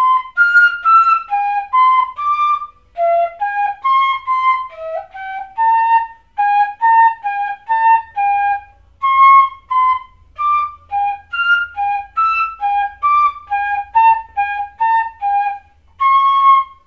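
Wooden pífano in C, a small side-blown fife, playing a melody phrase of short, separately tongued notes at about two to three a second, ending on a longer held note near the end.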